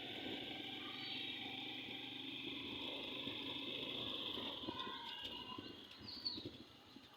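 Outdoor ambience: a steady high hiss with a low murmur underneath and a few faint chirps, growing quieter near the end.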